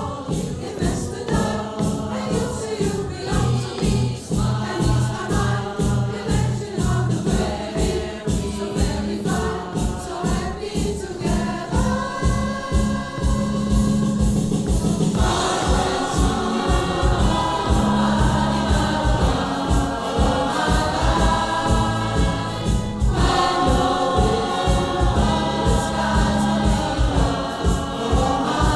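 Music: a song with choral singing over a steady beat.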